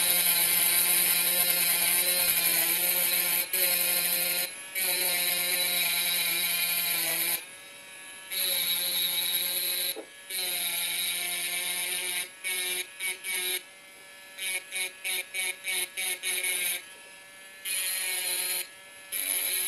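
Diamond-tipped bit in a high-speed rotary handpiece grinding into a drinking glass: a steady buzzing whine with a gritty hiss. It runs in long passes for the first dozen seconds, then in a string of quick short touches, then in longer passes again.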